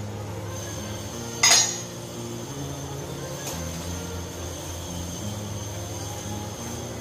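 A stainless steel pot lid clinking once, sharply and with a short ring, about a second and a half in, as it is lifted off a pot of hot water, with a fainter click a couple of seconds later. Background music runs underneath.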